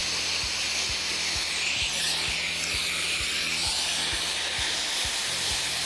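Soldering torch flame hissing steadily as it heats a copper pipe joint for a sweat solder joint. Quiet background music with a low regular beat plays underneath.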